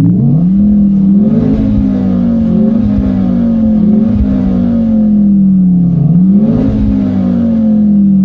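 Renault Clio RS engine note under acceleration, heard inside the cabin through the R-Sound Effect, which plays a synthesized engine sound through the car's speakers. The pitch climbs, dips once about six seconds in as for a gear change, then climbs again.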